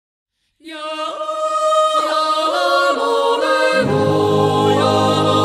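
Several voices yodelling in harmony on held notes, with quick leaps up and back down in pitch. About three and a half seconds in, deeper held accompaniment comes in beneath them.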